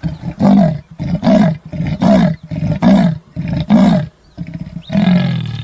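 Leopard's sawing roar: a series of about six harsh, grunting strokes, less than a second apart, the last one drawn out longer.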